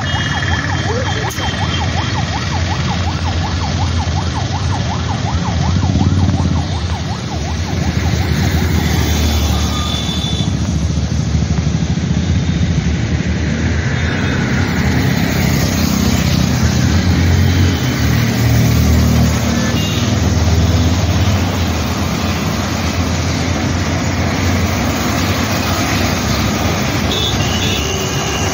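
Road traffic passing close by: a steady low rumble of engines and tyres, with a few short horn toots.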